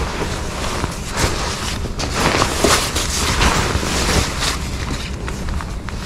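Rain-proof motorcycle cover rustling and crinkling as it is bunched and folded by hand right against the microphone, a continuous scratchy rustle with many small crackles.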